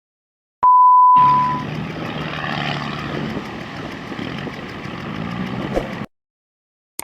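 A single loud electronic beep lasting about a second, followed by an engine running under a loud rushing noise for about five seconds, which cuts off abruptly.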